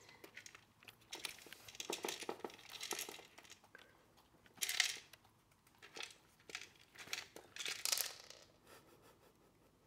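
Golden retriever puppy eating dry kibble out of a plastic slow-feeder bowl: irregular crunching and the clicking of kibble pieces knocked about against the plastic ridges, with a few louder bursts.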